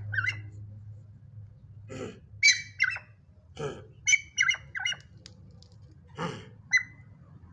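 A pet bird giving a string of short, sharp, high calls, with three cough sounds among them; the bird is answering coughs, as it does whenever its owner coughs.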